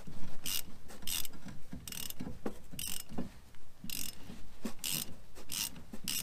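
Hand ratchet clicking in about seven short runs, one roughly every second, as a bolt on the rear brake's emergency-brake cable bracket is worked loose.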